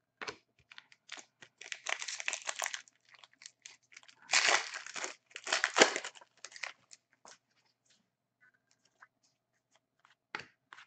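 Foil wrapper of a 2015-16 Upper Deck Artifacts hockey card pack being torn open and crinkled, in a few short rasping bursts about two, four and a half and six seconds in. Small clicks and taps of cards being handled come between them.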